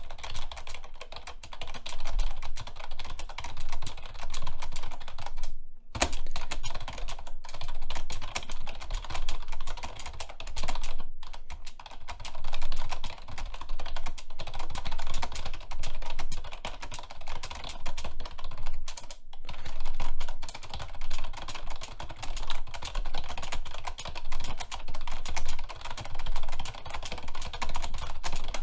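Fast, hard typing on a computer keyboard: a dense, continuous stream of rapid keystrokes with a few split-second breaks.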